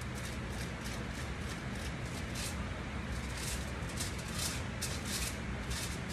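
Short, scratchy rustles of aluminium foil and hair, several a second and unevenly spaced, as a comb and brush work through foil highlight packets on a mannequin head, over a steady low hum.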